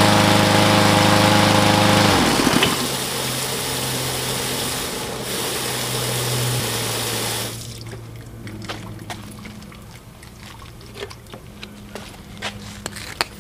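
Cub Cadet 159cc single-cylinder mower engine running during the deck washout, then shut off about two seconds in and winding down. Hose water keeps rushing through the deck until about halfway, then stops, leaving drips and small clicks.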